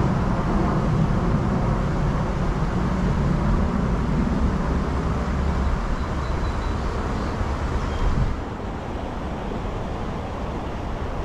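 Steady low rumbling outdoor background noise, which drops somewhat in level about eight seconds in.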